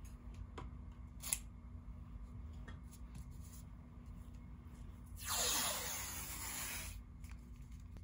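A few light clicks of handling, then a thin plastic sheet rustles and scrapes for about two seconds, starting about five seconds in, as it is moved and folded over a keyboard circuit board.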